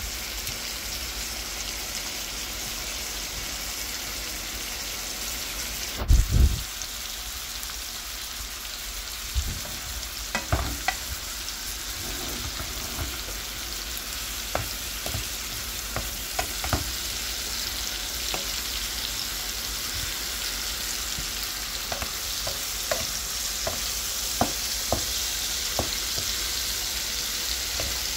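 Beef liver sautéing in oil in a frying pan, a steady sizzling hiss. From about a third of the way in, a wooden spatula stirs it, with scattered short knocks against the pan; a dull thump about six seconds in.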